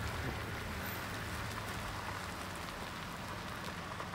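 Steady crackling rush of gravel crunching as the camera rolls slowly along a gravel road, over a low steady hum.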